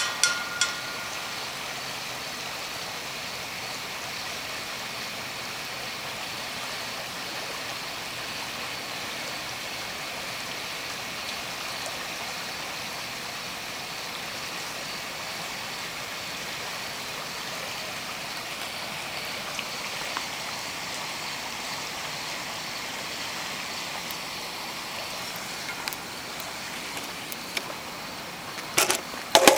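A steady hiss of background noise with no voice or music, and a few sharp clicks near the end.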